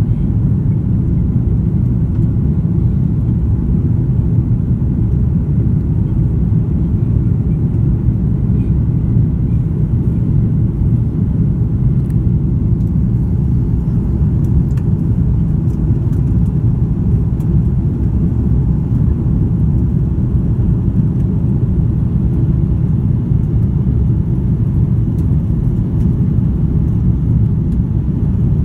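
Steady low rumble of jet engines and rushing air heard inside the cabin of an Airbus A330-300 climbing out after takeoff.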